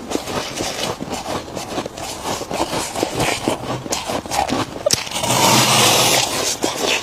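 Frost from a freezer being crunched and chewed close to the microphone: a run of quick, irregular crackling crunches, with a louder, longer stretch of crunching lasting about a second and a half from about five seconds in.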